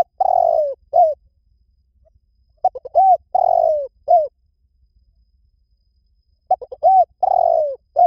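Spotted dove cooing: a repeated phrase of a few quick short notes, one long falling coo and a short final note, coming about every three and a half to four seconds.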